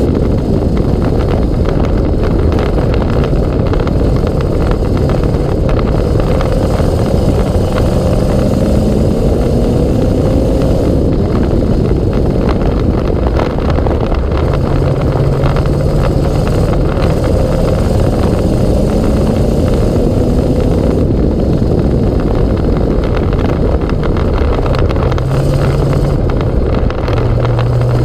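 Sprint car's V8 engine running hard on a dirt oval, heard from the cockpit: loud and unbroken, its pitch climbing several times as it accelerates and settling lower in between.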